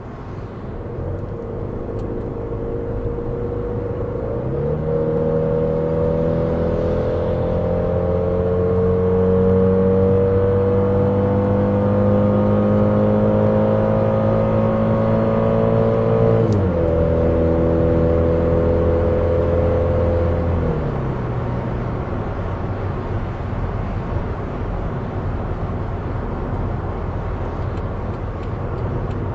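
School bus engine under hard acceleration after a transmission kickdown: the engine note jumps up about four seconds in as the automatic downshifts, climbs steadily in pitch, drops suddenly on an upshift, then fades as the throttle eases, leaving road and tyre noise. Heard from inside the cab.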